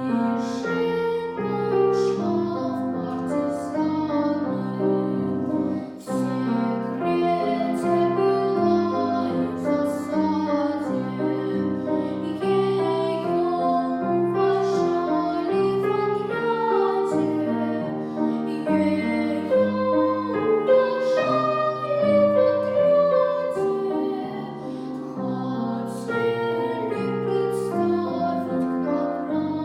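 A girl singing a song with piano accompaniment.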